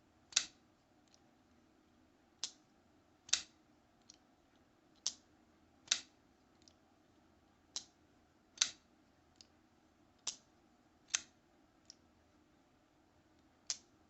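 Kubey Tarzan liner-lock folding knife being flicked open and snapped shut over and over. Sharp clicks come in pairs a little under a second apart, a pair every two to three seconds, with faint ticks between.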